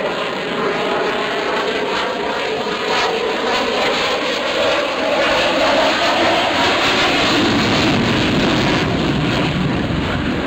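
Loud jet noise from the F-22 Raptor's twin Pratt & Whitney F119 afterburning turbofans during its flying display. The main pitch of the engine noise slides slowly down over several seconds.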